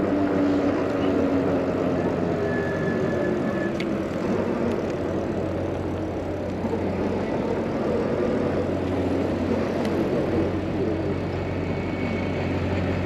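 Steady city traffic and road noise heard from a moving e-bike, with a low steady hum running through it.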